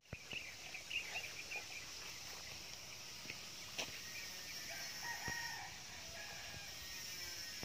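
Rooster crowing faintly, over a steady high hum of insects.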